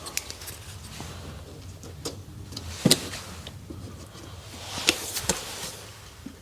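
A few light knocks and clicks from small plastic packers being handled and pressed into glue on timber, the loudest about three seconds in, over a faint low hum.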